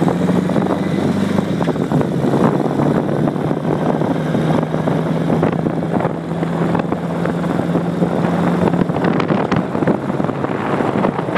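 Motorcycle with a sidecar on the move: the engine runs with a steady low hum under dense wind and road noise, and the hum drops away about nine seconds in.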